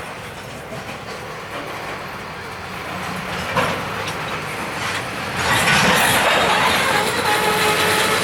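Freight train cars rolling past on the rails, with a sharp clack about three and a half seconds in. About five and a half seconds in the noise grows louder and thin, steady squealing tones come in from the wheels.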